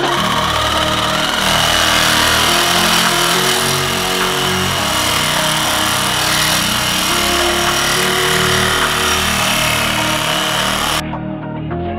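Angle grinder with a thin cut-off disc cutting through a steel mounting bracket on a scooter frame: a steady, hissing grind that stops suddenly about eleven seconds in.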